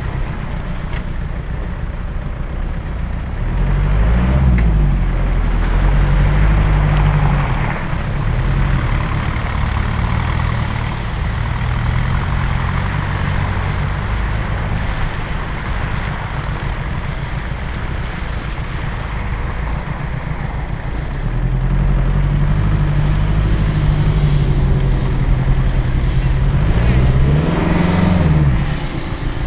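Land Rover Discovery 1 engine running as the vehicle drives over rough off-road tracks, heard from the bonnet. It pulls harder and louder about four seconds in and again for the last eight seconds, the pitch rising and falling with each push of the throttle.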